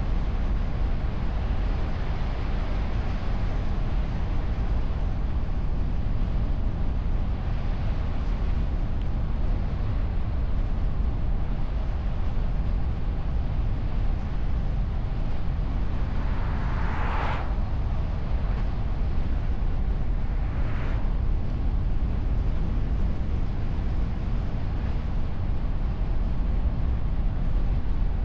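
Steady low rumble of a car driving, with tyre, engine and wind noise heard through a bonnet-mounted camera's wind-shielded microphone. A brief whoosh swells and fades about 17 seconds in, and a fainter one follows about 21 seconds in.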